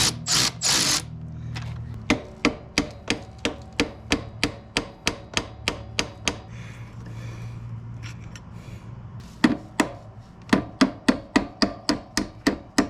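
A hand tool working the rear suspension link bolts: a short scrape at the start, then evenly spaced sharp metallic clicks about three a second, pausing for a few seconds past the middle and then starting again.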